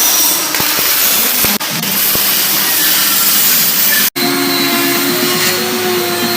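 Metalworking power tools running with a loud, steady hiss, in short clips joined by abrupt cuts; after a cut about four seconds in, a steady whine runs under the hiss.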